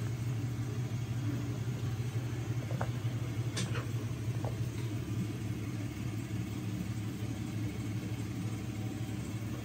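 Steady low mechanical rumble, with a few faint ticks.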